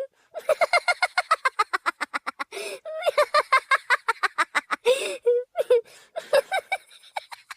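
A modified stock laughter sound effect recreating a cartoon mermaid's laugh. It is a rapid, high-pitched cackle of many short 'ha' pulses, about eight a second, broken by sharp gasping in-breaths about two and a half and five seconds in.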